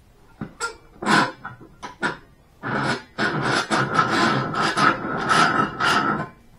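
Hand work on the parts of a disassembled hydraulic cylinder at a bench vise: a few sharp knocks and clanks, then about three and a half seconds of rapid scraping and rubbing strokes with a faint metallic ring.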